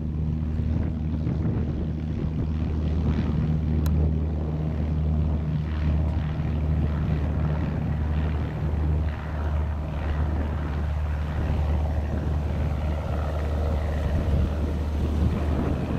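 Cessna 172G's six-cylinder engine and propeller at takeoff power as the plane rolls down the runway, lifts off and climbs away: a steady, even drone.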